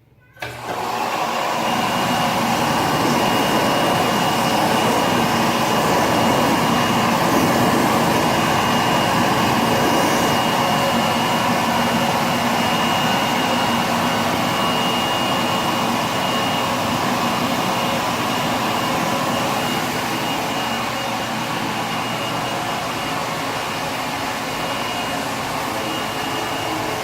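Toilet flushing: a sudden start into a loud, steady rushing that goes on without a break, with a thin high whistle running through it.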